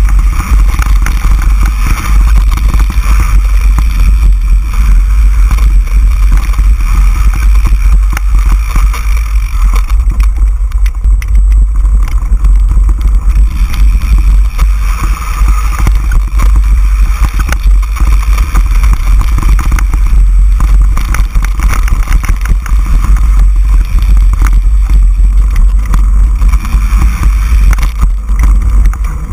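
Mountain bike riding fast down a dirt singletrack, heard from a bike-mounted camera: a heavy, loud rumble of wind buffeting the microphone, with a constant clatter of small knocks and rattles as the bike jolts over the trail.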